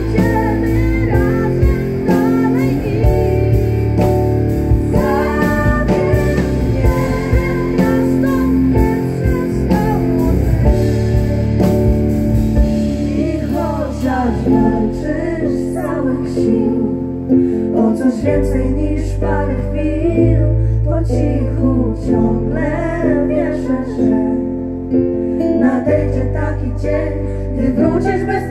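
Live band accompanying singers in a song: voices over guitar and bass. About halfway through, the bass drops out for a few seconds, leaving the singing more exposed, then comes back in.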